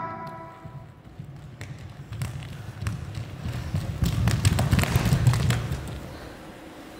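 Dancers' bare feet running and stepping on a stage floor, a patter of footfalls and thuds that builds from about two seconds in and thins out near the end. The last of the music fades away at the start.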